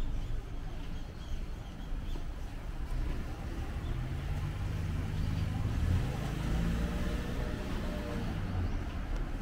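A car driving past on the street, its engine hum building from about four seconds in, loudest a little later, and fading near the end, over a steady low rumble of traffic.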